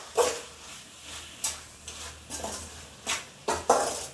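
Slotted metal spoon scraping and stirring chicken masala around an aluminium kadai as the chicken sautés, about six strokes, with the strongest near the end, over a sizzle from the pan.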